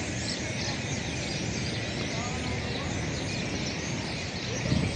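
A large flock of birds chirping and calling all at once in a dense, continuous chatter, over a steady low rumble, with a brief thump near the end.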